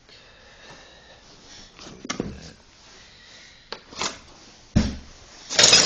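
Handling noises from a safe lock and its keys: a few separate clicks and knocks, with a heavier thud near the five-second mark. It ends in a short, loud, breathy rush that sounds like a sniff or rustle.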